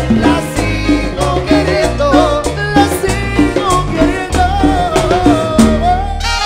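A Latin dance band, the orquesta, playing a tropical dance number: a steady bass line, a regular percussion beat and a melodic lead line.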